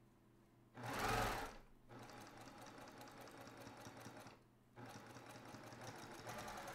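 Domestic sewing machine stitching a seam through layered quilting cotton in two runs, with a short stop a little past four seconds in. A louder burst of noise comes about a second in, just before the stitching settles into its steady rhythm.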